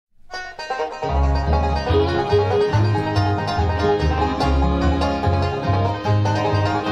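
A bluegrass band's instrumental opening comes in from silence, with banjo and acoustic guitar picking over a steady upright-bass beat. The band reaches full volume about a second in.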